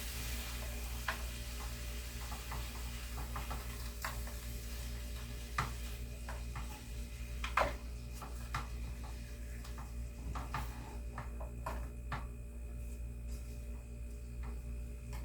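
Scattered light clicks and knocks of a utensil against kitchenware, about a dozen irregular strikes with the loudest about seven and a half seconds in, over a steady low hum.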